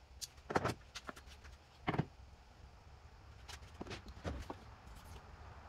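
A few short, light knocks and clatters of pine boards and a metal bar clamp being handled and set against each other on a workbench: one about half a second in, one around two seconds in, and a quick run of three past the halfway mark.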